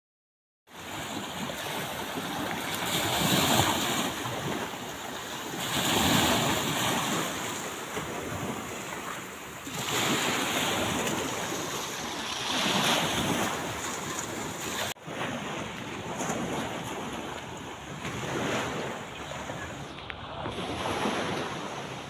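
Sea waves washing on the shore, swelling and fading every few seconds, with wind buffeting the microphone. The sound comes in suddenly just under a second in and drops out for a moment near the middle.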